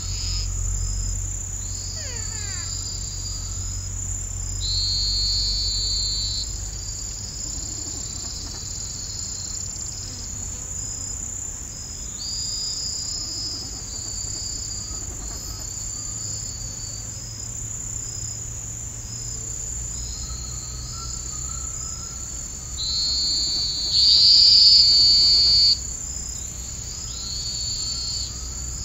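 Insect chorus: a steady high-pitched cricket trill with repeated buzzy calls, each a second or two long, the loudest near the end.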